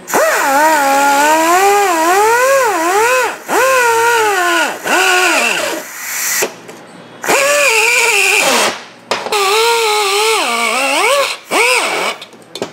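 Die grinder cutting a hole in a chainsaw's steel muffler. Its whine rises and sags in pitch as the bit bites and eases, in about six runs with short pauses between them.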